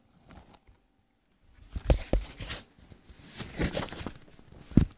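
Handling noise as the camera is picked up and moved: rustling, with a few sharp knocks, two close together about two seconds in and the loudest just before the end.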